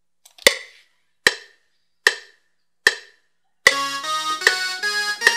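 FL Studio's metronome counting in a recording: four short clicks, evenly spaced a little under a second apart. Then, about two-thirds in, a software synthesizer starts sounding notes and chords played from a MIDI keyboard.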